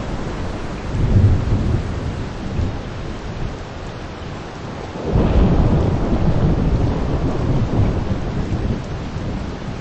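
Rain shower falling steadily, with low thunder rumbling twice: a short swell about a second in and a longer, louder roll starting about halfway through.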